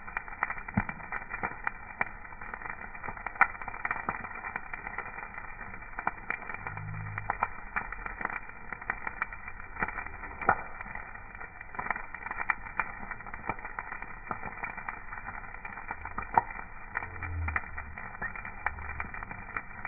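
Fire crackling: irregular sharp pops and snaps over a steady hiss, with a few brief low rumbles in between.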